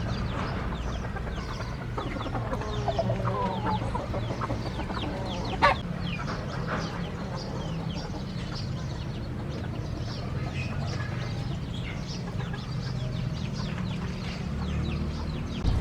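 A flock of chickens clucking and calling, many short overlapping calls, with one louder sharp call about five and a half seconds in, over a steady low hum.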